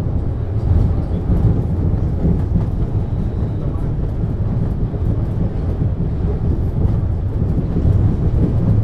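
MAN GTW 72 suspension railway car of the Wuppertal Schwebebahn running along its track, heard from on board: a steady low rumble with no pauses.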